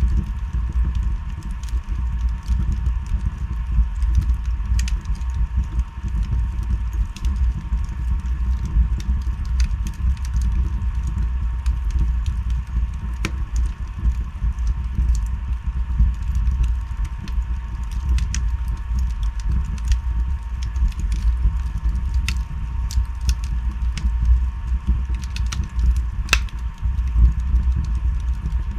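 Wood fire burning in a fireplace: a steady low rumble with scattered crackles and pops, one louder pop a little before the end.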